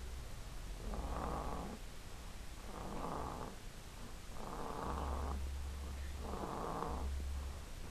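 A sleeping baby snoring: four snoring breaths in a steady rhythm, each just under a second long and a little under two seconds apart.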